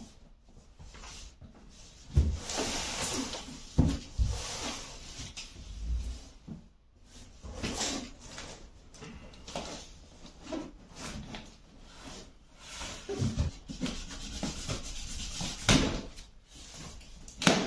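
Large cardboard box holding a 28-inch CRT television being handled and turned round on a wooden parquet floor: cardboard scraping and rubbing, with several heavy thumps as the box is shifted.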